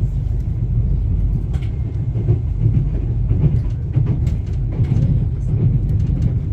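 Hyundai Rotem HRCS2 electric multiple unit running on the rails: a steady low rumble with scattered light clicks.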